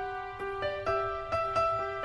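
Gentle, slow piano music: single notes struck evenly, about four a second, each ringing on and fading over a held lower note.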